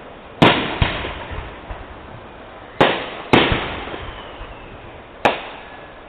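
Aerial firework shells bursting: four sharp bangs, about half a second in, twice near the three-second mark and once past five seconds, each trailing off in a rolling echo, with a lighter pop just after the first.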